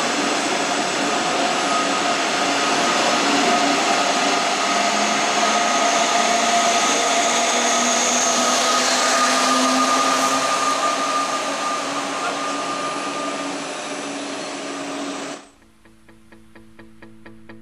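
Electric locomotive of a double-deck push-pull S-Bahn train running past close by, with steady wheel and running noise and a whine of several steady tones from its electric drive, loudest as the locomotive draws level. Near the end it cuts off suddenly and background music begins.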